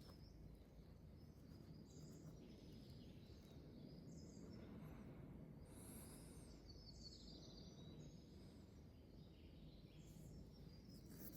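Faint outdoor ambience with distant birdsong: short high chirps every couple of seconds and a quick trill about seven seconds in, over a low steady background rumble.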